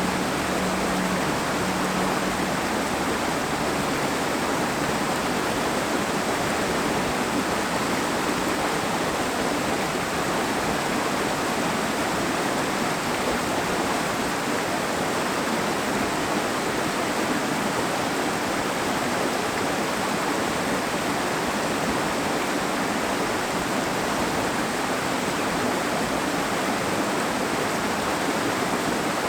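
Steady, even rush of water, with no breaks or changes.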